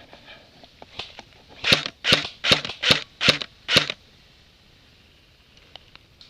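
Six quick crunching footsteps through dry leaves and brush, about two and a half a second, starting just under two seconds in, with a few lighter rustles and snaps before them.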